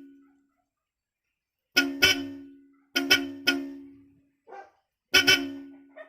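Newly installed Bosch Europa car horns sounding in short honks, about four blasts with some of them doubled. Each blast holds two steady notes together, the usual high-and-low horn pair, and stops abruptly with a brief fade.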